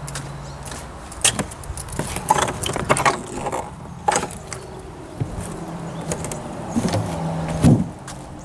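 Footsteps and clicks of someone walking with a handheld camera, over a low steady hum, with a louder bump near the end.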